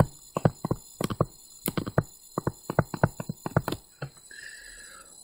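A pen stylus tapping and clicking on a tablet screen while capital letters are handwritten, a quick irregular run of sharp taps several times a second, thinning out after about four seconds.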